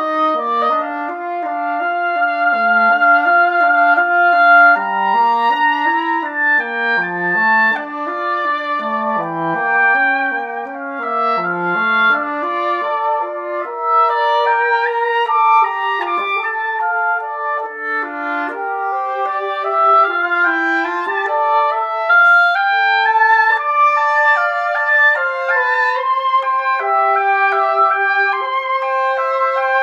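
Multi-tracked duet of a Howarth cocobolo-wood oboe and cor anglais: the cor anglais runs a lower line of quick notes beneath longer held oboe notes in the first half, then both lines move higher together.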